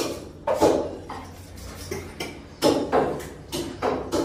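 Repeated sharp knocks from butchering work on a sheep carcass. There are about seven, irregular and coming faster in the second half, each ringing briefly off the tiled walls.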